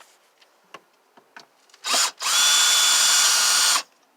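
Handheld power drill run in two bursts: a quick blip, then a steady whine for about a second and a half that spins up at the start and stops abruptly. Faint handling clicks come before it.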